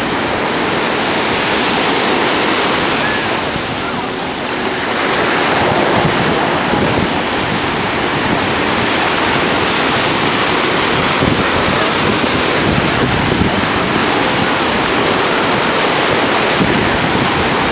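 Small waves breaking in the shallows, a steady wash of surf that dips briefly about four seconds in.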